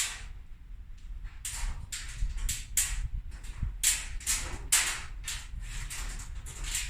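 Wind buffeting the microphone: a steady low rumble with repeated short, irregular rushes of hiss.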